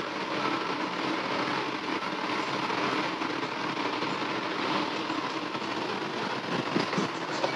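A commercial kitchen gas stove burner runs with a steady rushing noise under a glass-lidded pan of potatoes and tomatoes simmering over it.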